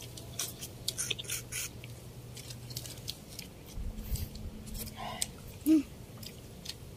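Close-up eating sounds of two people eating with their hands: chewing with wet mouth clicks and smacks, densest in the first two seconds. About three-quarters of the way through comes one short voiced sound from one of them, the loudest thing in the stretch.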